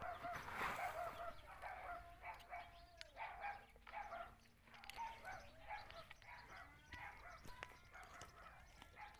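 Faint, repeated short calls of farmyard fowl, with scattered light clicks and scrapes from a metal spoon digging in dry soil.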